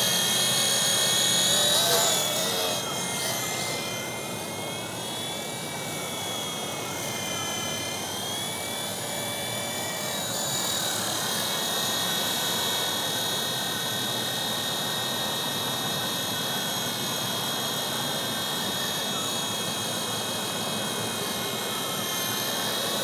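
WLToys V915 RC helicopter with an Esky 370 motor in flight: a high motor-and-gear whine over rotor noise. The whine rises and falls in pitch with the throttle through the first half, then holds steady. It is loudest in the first couple of seconds and softer once the helicopter is farther off.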